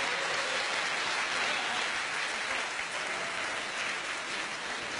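Audience applauding, the clapping easing off a little toward the end.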